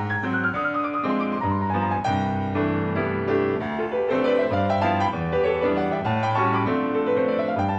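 Background piano music: flowing arpeggios that sweep up and down over a steady low bass.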